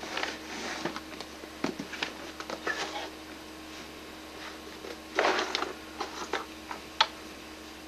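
Rustling and light knocks as things are handled on a closet shelf, in short scattered bursts, the loudest about five seconds in, over a faint steady hum.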